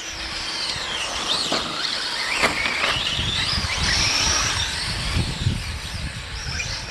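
Several radio-controlled cars racing on a dirt track, their motors whining at a high pitch that rises and falls as they speed up and slow down.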